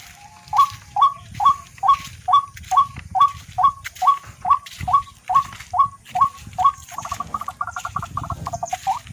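Tikling (rail) calling: a steady series of short, sharp upward-flicking notes, a little over two a second, which breaks near the end into a fast chattering run.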